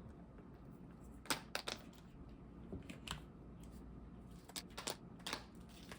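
Ice cubes clinking as they are picked up and dropped into a blender jar: a series of light, irregular clicks and knocks.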